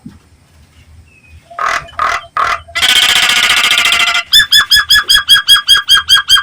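Nias hill myna calling loudly: three short calls, then a rapid rattling trill for about a second and a half, then a quick run of about a dozen repeated whistled notes, some six a second.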